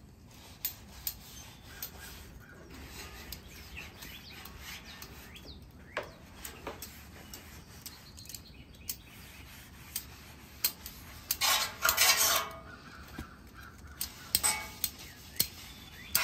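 Metal tongs clicking and scraping on a hot steel griddle top as an oiled paper towel is wiped over it while the cooktop is being seasoned. A louder brushing rush comes about twelve seconds in.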